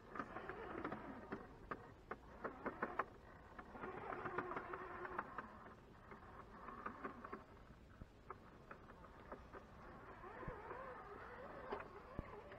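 Electric motor and geartrain of a radio-controlled scale rock crawler whining faintly as it climbs, its pitch rising and falling with the throttle, with a run of clicks and ticks from the tyres and chassis on the rock in the first few seconds.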